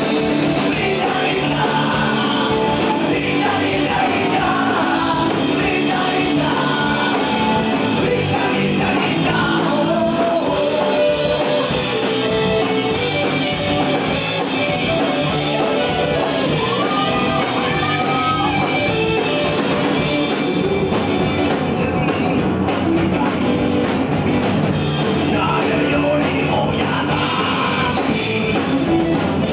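Punk rock band playing live: distorted electric guitars and drum kit, with a male lead singer's vocal.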